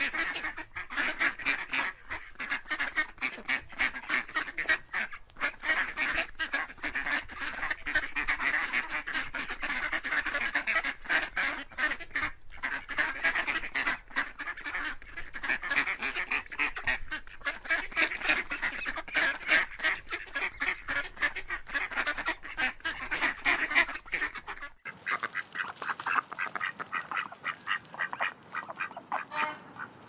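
A flock of ducks quacking, many rapid calls overlapping with no pause. Near the end the calls become quieter.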